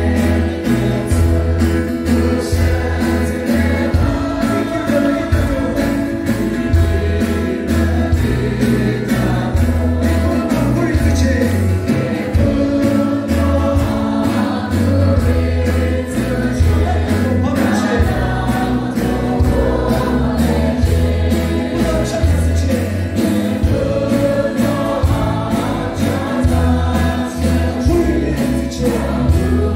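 Congregation singing a gospel worship song with a live band: keyboard, acoustic guitar and lead singers on microphones, over a steady beat.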